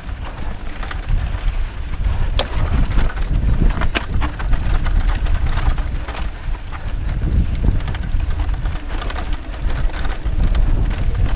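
Wind buffeting a helmet-mounted GoPro microphone and knobby mountain-bike tyres rolling over loose dirt on a fast singletrack descent, with scattered sharp clicks and knocks as the bike rattles over bumps.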